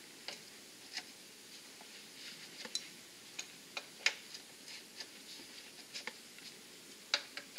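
Scattered light metallic clicks and taps, irregular and faint, as an adjustable wrench is handled and fitted onto the engine's oil drain fitting.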